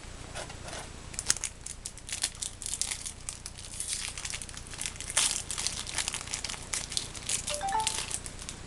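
Foil Yu-Gi-Oh booster pack wrapper crinkling as it is handled, a dense irregular crackle with a few short squeaky tones near the end.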